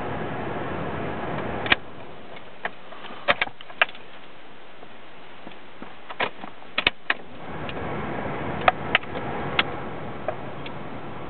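Car engine running, heard from inside the car, with sharp clicks and knocks scattered through, about a dozen in all. The steady running sound drops away about two seconds in and comes back about eight seconds in.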